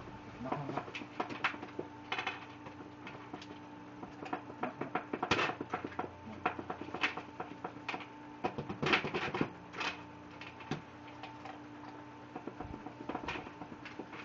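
Irregular light taps and clicks on the plastic lid of a bucket as a husky puppy noses and paws at it and a person's fingers tap it, the taps coming in quick clusters about five and nine seconds in. A faint steady hum runs behind.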